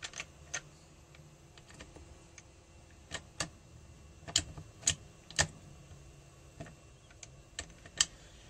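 Irregular sharp metallic clicks and clinks as the steel gears and shafts of a Derbi AM6 gearbox are pressed and worked into place in the aluminium crankcase, about a dozen, the loudest in the middle and near the end.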